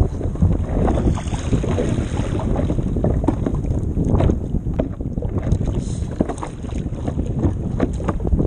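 Water slapping and sloshing against a stand-up paddleboard as it rocks on choppy ocean swell, with wind buffeting the microphone.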